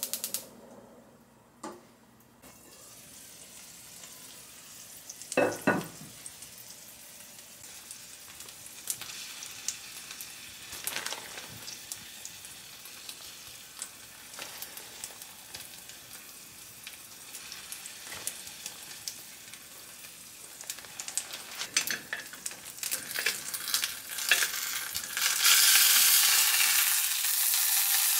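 Food frying in oil in a pan: a steady sizzle with scattered clicks and scrapes of a utensil, and a short clink about five seconds in. Near the end the sizzle turns much louder and brighter.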